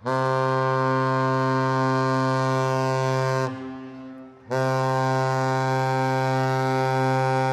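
The Great Lakes freighter Arthur M. Anderson's ship horn sounding two long blasts of about three and a half seconds each, a second apart, as part of a master salute. It is a loud, steady, deep tone with many overtones, and the second blast cuts off just at the end.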